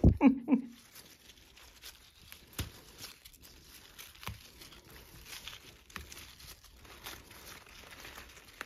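Basil leaves being picked by hand: faint rustling and tearing of leaves, with a few small clicks spread through. A brief voice-like sound right at the start is the loudest thing.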